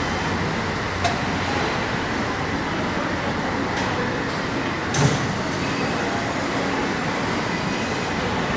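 Steady rolling noise of a utility cart driving along a car-assembly-plant aisle, mixed with the plant's machinery hum. A short clack about a second in and a louder knock about five seconds in.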